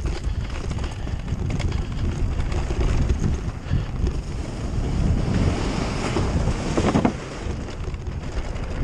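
Wind buffeting the camera microphone over the rumble and rattle of a Haibike AllMtn 3 electric mountain bike descending a dirt trail at speed, with a sharp knock about seven seconds in.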